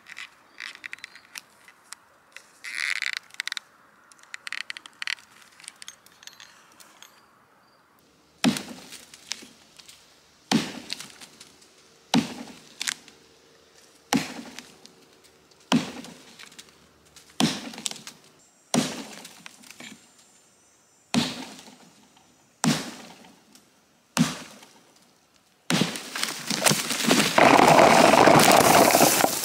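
Chopping a fallen dead tree with an axe: about ten sharp blows into the wood, one every second and a half or so, then several seconds of loud cracking and crashing near the end.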